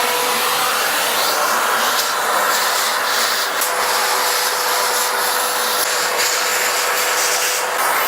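Vacuum cleaner running steadily, a loud even rush of air with a constant whine, as it is worked over a keyboard.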